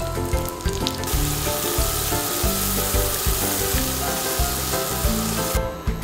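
Butter sizzling in a stainless-steel frying pan with shimeji mushrooms frying on low heat, over background music with a steady beat. The sizzle starts about a second in and cuts off suddenly near the end.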